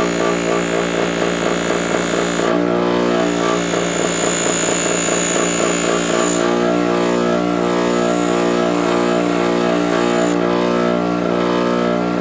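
An electric sanding tool runs steadily with a constant motor hum while stainless steel trim is sanded against it to take out scratches. The sanding noise shifts slightly a few times as the part is moved.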